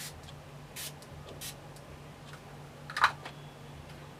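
Pump bottle of makeup setting spray misted at the face in three short hisses, each about three-quarters of a second apart. A louder single knock follows about three seconds in.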